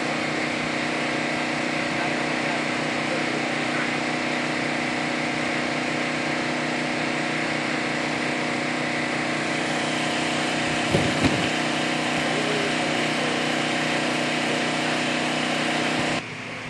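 An engine running steadily at constant speed, a continuous hum with two brief knocks about eleven seconds in. The sound drops away abruptly near the end.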